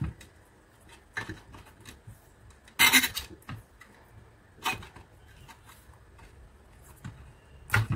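Black vinyl electrical tape being pulled off its roll and wound around a wire splice: several short tearing pulls, the longest and loudest about three seconds in, with quiet handling of the tape and wires between them.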